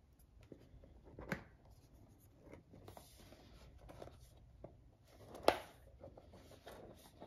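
Faint handling noises from a knife box being opened by hand, light rubbing with scattered small clicks, and one sharper click about five and a half seconds in.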